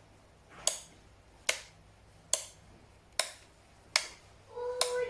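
Rocker switches on a switchable power strip being pressed one after another: six crisp clicks, about one every 0.8 seconds, firm with no mushiness. Near the end a high-pitched voice comes in.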